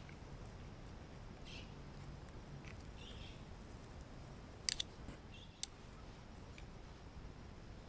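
Charcoal shichirin grill with vegetables on its wire net: faint crackles and ticks over a low hiss, then a few sharp clicks close together about five seconds in.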